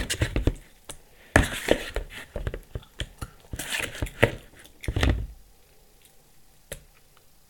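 A run of sharp clicks and knocks from a metal spoon and a plastic bowl being handled, with a heavier thump about five seconds in, after which the clatter stops.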